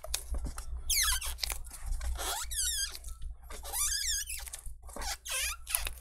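Double-sided adhesive tape squeaking as it is pulled out in a strip from under a laptop LCD panel. There are about four high squeals, each with a wavering, sliding pitch.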